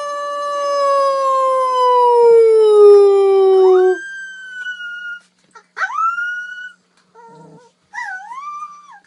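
Puppies howling: one long, loud howl slowly falling in pitch for about four seconds, then a few short, higher howls that rise and fall.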